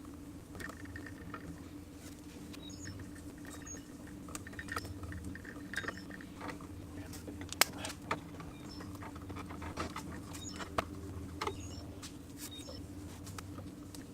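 Scattered small clicks and rustles of hands tidying the wiring of a light switch in its electrical box, with one sharper click about seven and a half seconds in, over a steady low hum.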